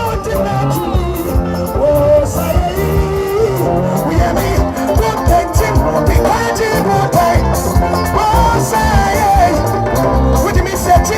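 Praise music: voices singing over a band with a steady, driving beat.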